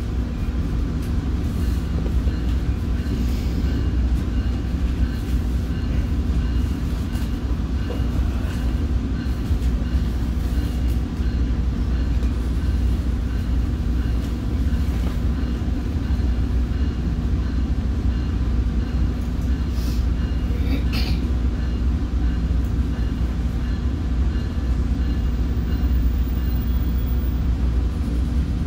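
Commuter train running between stations, heard from inside a passenger car: a steady low rumble of wheels on rail, with a few brief clicks about twenty seconds in.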